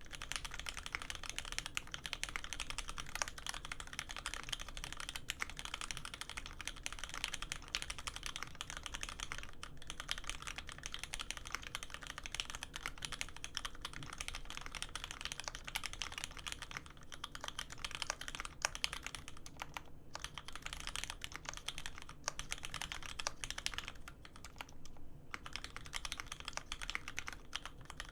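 Continuous fast typing on a custom mechanical keyboard with lubed linear Cherry Hyperglide Black switches on 70g springs, an aluminium plate and GMK keycaps: a dense stream of keystroke clacks, with a short pause near the end.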